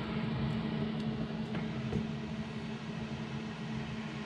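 Steady low machine hum with an even hiss, a motor or fan running, with a few faint light ticks about a second and a half and two seconds in.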